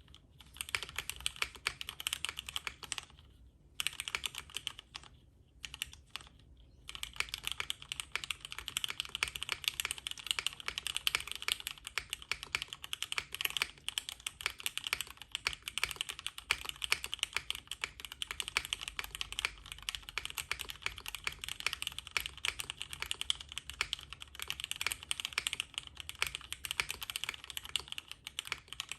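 Fast typing on a Bakeneko65 custom mechanical keyboard with lubed and filmed Cherry MX Black clear-top linear switches, an FR4 plate and PBT keycaps. There are a few short pauses in the first several seconds, then steady, continuous typing.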